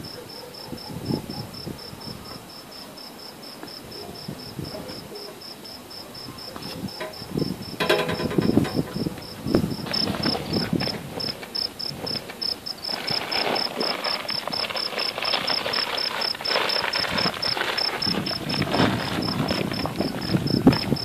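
A cricket chirping steadily, a high pulsing trill of about four pulses a second. Shuffling footsteps and rustling come in about eight seconds in and grow busier in the second half.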